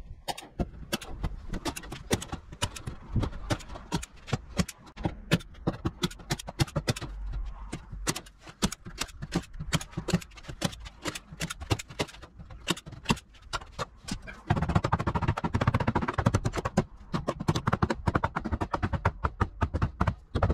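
Manual hand staple gun firing staples through galvanized wire mesh into a timber frame: a long run of sharp clacks, several a second, coming thicker and louder for the last six seconds or so.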